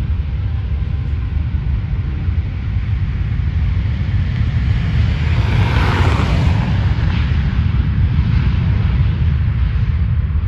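Jet airliner's engines on the runway, a deep rumble with a hiss that swells to its loudest about six seconds in as the aircraft passes, then fades as it moves away.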